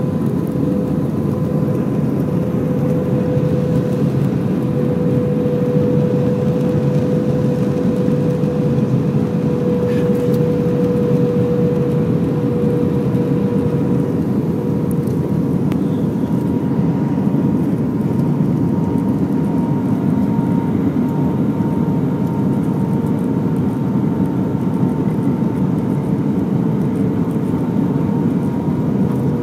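Airbus A320 cabin noise in flight: a steady roar of the jet engines and rushing air, with a steady engine tone that sinks slightly in pitch through the second half.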